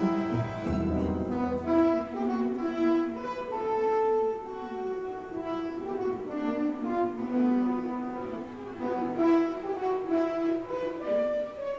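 Orchestral music, brass and strings playing held notes in a melodic passage.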